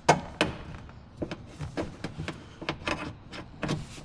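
Irregular clicks and knocks of hard parts being handled and fitted into a car door during reassembly, with two sharp clicks at the start.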